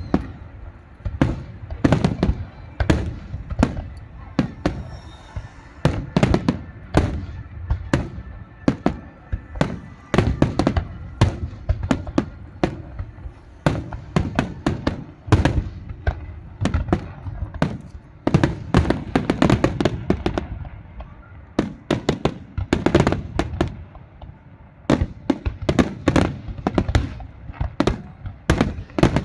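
Fireworks display: a rapid, continuous barrage of sharp bangs and crackles, several a second, easing briefly twice before picking up again.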